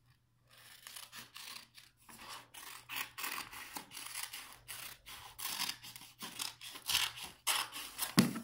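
Scissors snipping through a folded sheet of paper in a run of quick, uneven cuts, getting louder near the end.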